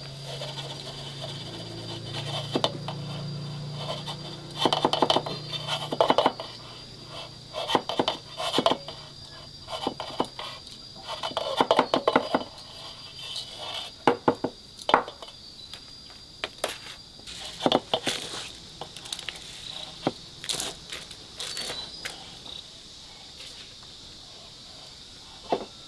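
Irregular knocks and clatter of hard objects being handled, in small clusters, with a steady high insect whine behind that stops about two-thirds of the way through.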